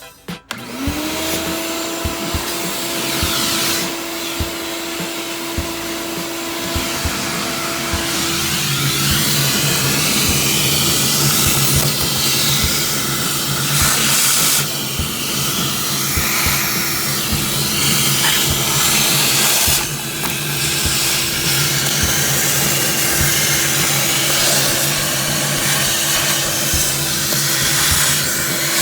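Shop vac starting up about half a second in, its motor spinning up to speed and then running steadily with a loud whir. Its note shifts to a lower hum about eight seconds in, as it vacuums out debris.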